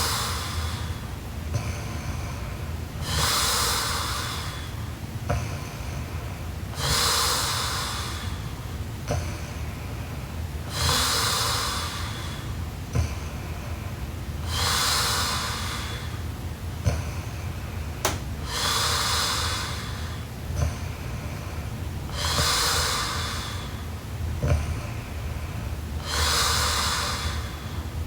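A sleeping girl breathing heavily and snoring lightly: a hissing breath about every four seconds, slow and regular.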